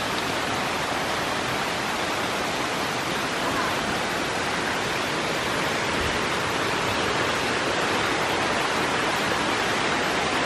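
Steady rush of a stream of water cascading over rocks.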